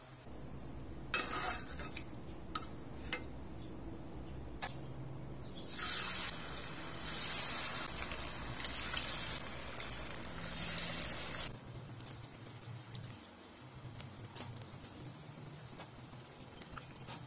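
Battered chicken feet deep-frying in hot oil in an aluminium pot, the oil sizzling and crackling. There are several loud surges of sizzling in the first dozen seconds, then a quieter steady crackle. A few sharp clicks come early on from a metal mesh strainer knocking against the pot.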